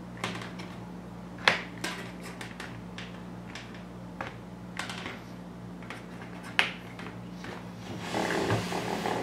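Hard plastic clicks and knocks as an orange Hot Wheels track piece is worked into the blue plastic track base, with a short scraping slide near the end as the plastic base is shifted across the table.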